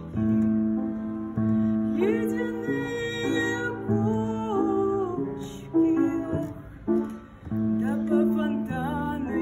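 Slow instrumental music: held accompanying notes changing about once a second, with a melody line that glides between notes.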